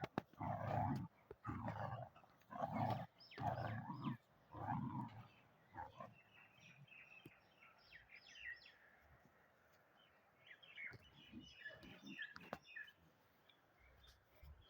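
A dog vocalising in about six loud, rough, low bursts in quick succession over the first few seconds. Then only faint, short, high chirps are heard.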